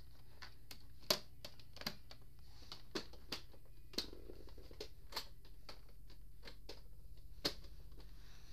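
Scattered light clicks and taps of hard plastic toys being handled: a toy horse trailer and its tow vehicle. The loudest tap comes about a second in and another near the end.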